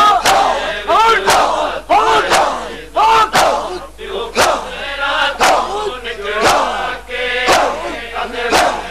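Crowd of men chanting a noha together while beating their chests in matam, with sharp hand-on-chest slaps about once a second.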